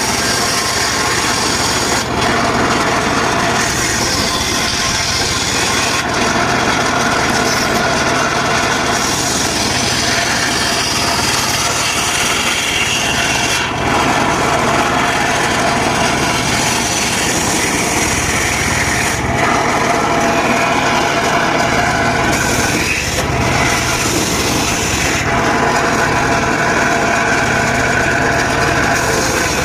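Mobile circular sawmill cutting dry teak: the saw blade runs continuously through the wood over a steady engine drone. The cutting sound changes pitch and dips briefly every few seconds as cuts begin and end.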